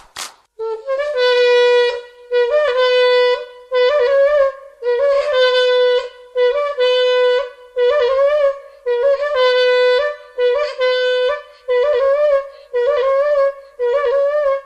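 A wind instrument playing a string of held notes at nearly the same pitch, each about a second long with a slight bend at its end. It stops just before the end.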